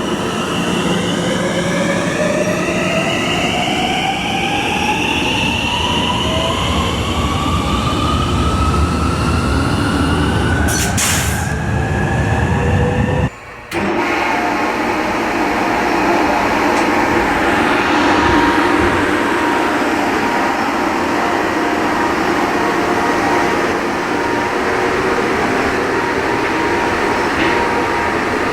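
An electric train accelerating, its drive giving several whines that rise in pitch together. About eleven seconds in comes a short sharp hiss: the air compressor's drain valve blowing out the moisture it has collected, the 'shupan' sound. After a break the sound turns to a steady mechanical hum with a few held tones.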